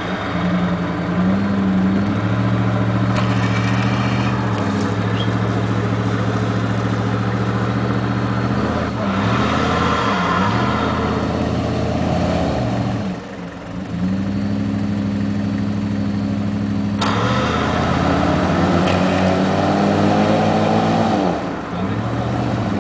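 Vehicle engine held at raised revs under heavy load, dipping and picking up again a few times, while a Jeep Grand Cherokee bogged in deep mud is pulled out on a rope.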